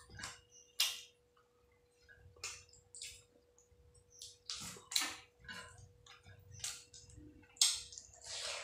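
Wet clicks and squelches of eating rice and curry by hand: fingers mixing rice with egg-chicken curry on a plate, then chewing and lip smacks as handfuls go to the mouth. A faint steady hum runs underneath.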